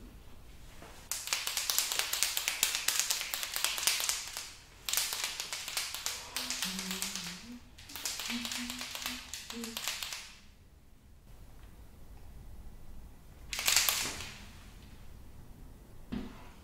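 Chalk marker tip drawing on window glass: three long runs of scratchy strokes with short pauses between them, then one short, louder stroke near the end.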